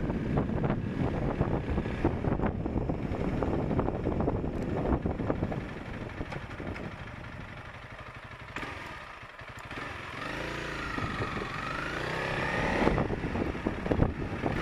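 Honda CRF300L's single-cylinder engine running while the bike is ridden, with wind buffeting the dash cam's microphone. The noise eases as the bike slows about halfway through, then the engine note rises and falls as it pulls away again.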